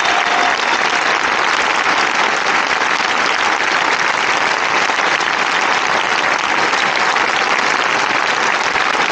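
Large crowd applauding, a dense, steady clapping that holds at an even level throughout.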